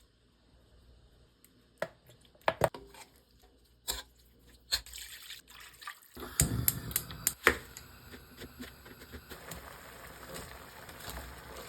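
Kitchen cooking sounds: a few sharp knocks of ingredients or utensils, then liquid splashing into a pot about six seconds in, settling into a steady hiss of the pot heating.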